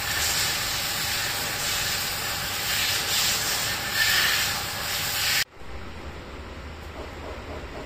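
High-pressure water jet from a pressure washer hissing as it sprays against a scooter's rear wheel and underbody, surging louder a few times. It cuts off suddenly about five seconds in, leaving quieter background noise.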